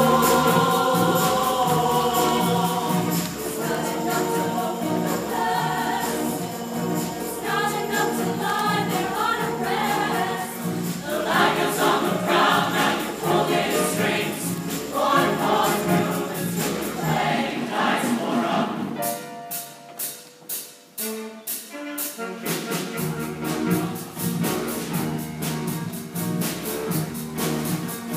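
Mixed-voice show choir singing with accompaniment over a steady beat. About nineteen seconds in, the low end drops out for a few seconds, leaving mostly sharp, evenly spaced beats, before the full sound comes back.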